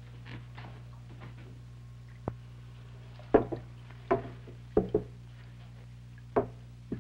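About seven sharp splashes and knocks, starting about two seconds in, as an electric eel in a cloth sling on a pole is lowered into a glass aquarium tank. A steady low hum runs underneath.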